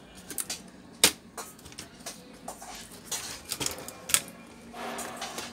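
Irregular clicks and knocks of a Lenovo G450 laptop's plastic case and internal parts being handled and knocked against the bench during disassembly. The sharpest knock comes about a second in, and there is a brief scraping near the end.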